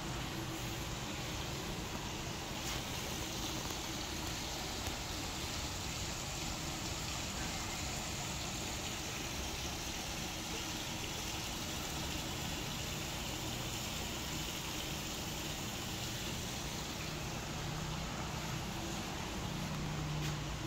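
Steady ambient noise: an even hiss with a faint low hum under it.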